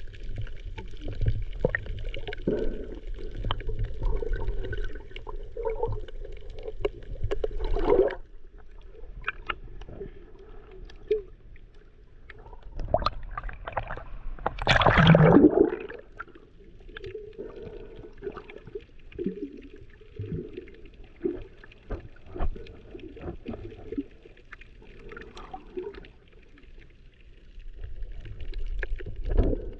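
Muffled water sound as picked up by a snorkeler's camera in or at the water, with many scattered clicks throughout. About halfway through, a loud swell of water noise lasts a couple of seconds.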